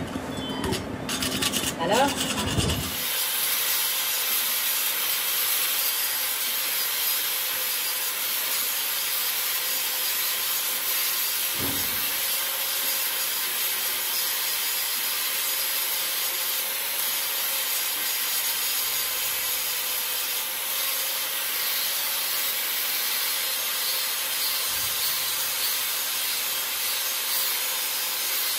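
An angle grinder grinds down the weld bead on a repaired steel truck axle tube, a steady, even grinding that settles in about three seconds in. Before that come a few metal knocks and scrapes at the joint.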